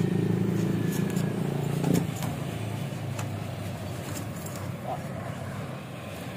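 An engine running steadily with a low hum, which stops abruptly about two seconds in. After it stops there is a faint outdoor background with a few light clicks.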